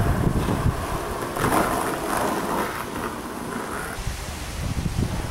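Gusty wind buffeting the microphone, a rough low rumble that rises and falls.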